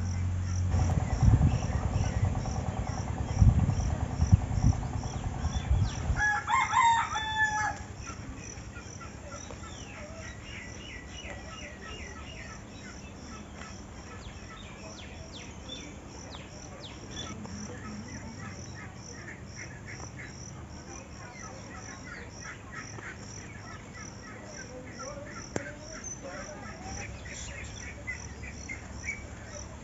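A rooster crows once, about seven seconds in, rising then falling in pitch. Before it come several seconds of loud low thumps and rumble. Throughout, an insect chirps in steady high pulses about twice a second, with scattered small bird chirps.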